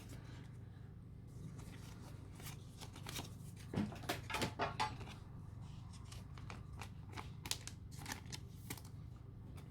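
Faint rustling and short crinkly clicks of Pokémon trading cards and foil booster-pack wrappers being handled, coming in scattered bunches, over a steady low hum.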